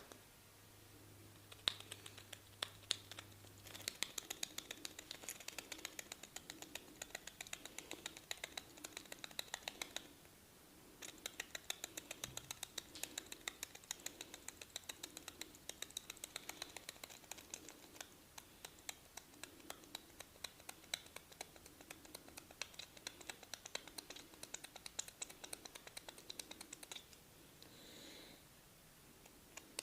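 Rapid, dense clicking and crackling from a barber's hands working the head and hair during a massage. It runs in long bursts that pause briefly about ten seconds in and again near the end.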